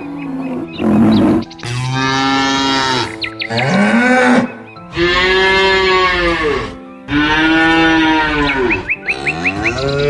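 Cattle mooing: four long moos, each rising and then falling in pitch, with a few quick high chirps between them.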